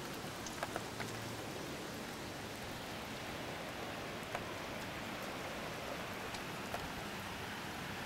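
Steady rain falling on standing floodwater and wet grass, an even hiss with a few sharper drop ticks scattered through it.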